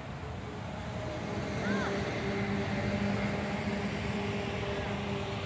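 A steady engine hum over outdoor background noise, swelling from about a second in, with one brief chirp near two seconds.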